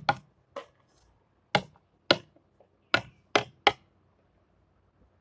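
Sharp taps of a small plastic toy animal figure being hopped across a wooden table top, about seven taps at uneven spacing.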